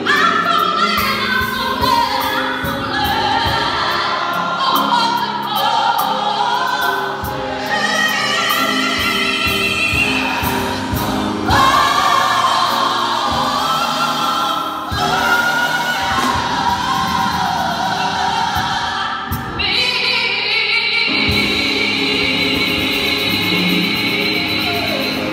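Gospel choir singing with a lead vocalist over drums and piano. About twenty seconds in, the voices hold one long chord to close the song.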